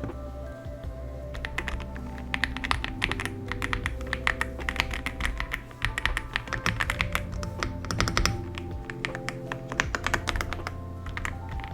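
Typing on an Aula F75 mechanical keyboard fitted with Leobog Reaper switches: a quick, uneven run of sharp key clicks that starts about a second in, over light background music.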